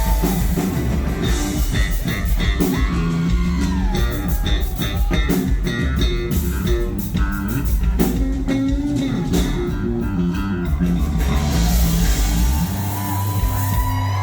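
Electric bass guitar solo played live over drums: a run of low notes, settling on one long held low note near the end.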